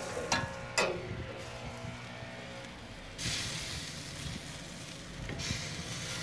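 Two metal clanks from the barbecue grill in the first second, each with a short ringing tail, then meat sizzling on the grill grate, the hiss growing louder about three seconds in.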